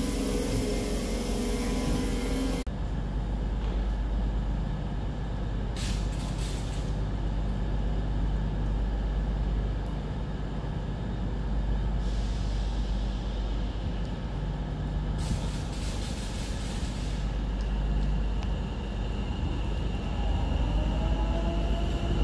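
A Class 150 diesel unit runs out with a steady engine note for the first couple of seconds. Then a Class 710 electric unit stands at the platform with a low steady rumble, and its air brake system lets out two short loud hisses of air and a softer one between them. Near the end a rising whine starts as the unit moves off.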